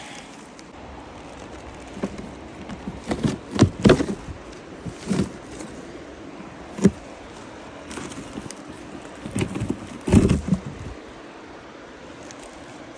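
Twigs, bark and charred wood cracking and rustling as a person moves through burned brush: a handful of irregular sharp snaps and crunches, the loudest about four seconds and ten seconds in.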